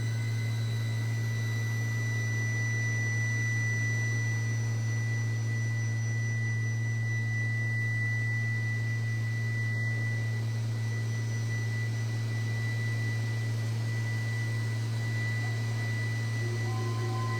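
Modular synthesizer drone from a Make Noise Strega and XAOC Drezno: a loud, steady low tone with a thin high whistling tone held above it. A few new middle tones join near the end.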